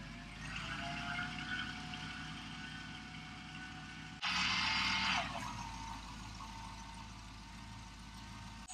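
The engine and hydraulics of a truck-mounted boom lift running while it lifts a roof truss, a steady hum with a held whine. A loud hiss lasts about a second, beginning a little over four seconds in.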